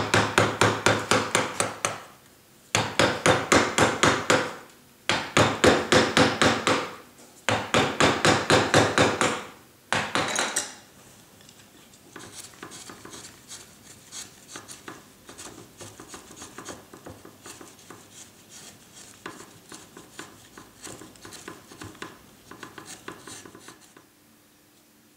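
Hand carving tools working limewood: loud, quick, repeated strokes in bursts of about two seconds with short pauses. About ten seconds in they give way to quieter, lighter strokes of fine detail work.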